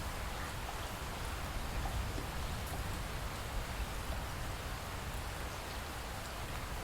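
Steady light rain after a thunderstorm, with scattered drips landing among an even hiss and a low rumble.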